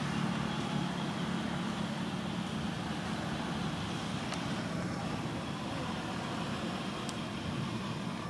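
Steady low rumble of road traffic under an even hiss, a little weaker in the second half.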